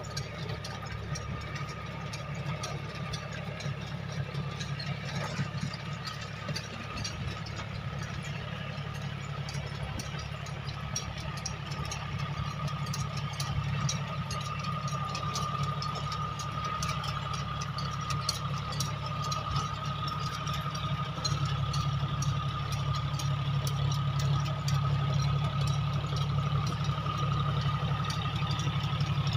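John Deere tractor's diesel engine running steadily under load as it pulls a rotavator through the soil, with a thin steady whine and scattered ticks and rattles over the low engine drone. It grows louder in the last several seconds as the tractor comes nearer.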